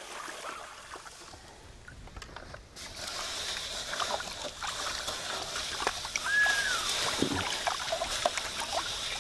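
Water sloshing and splashing, with small scattered clicks, getting louder about three seconds in.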